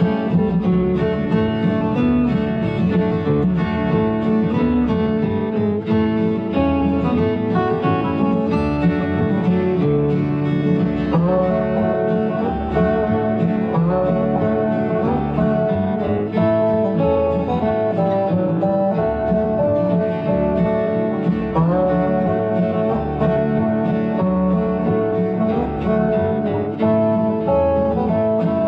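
Instrumental music led by plucked acoustic guitar in a bluegrass-country style, playing continuously.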